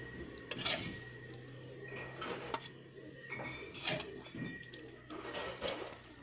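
A cricket chirping steadily at about five pulses a second, stopping shortly before the end. A few sharp clinks and knocks of a spoon against a ceramic plate as food is spooned onto it.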